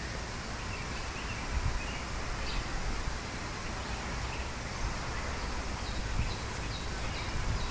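Steady outdoor background noise with a low rumble and a few faint, short chirps high up; no cat call stands out.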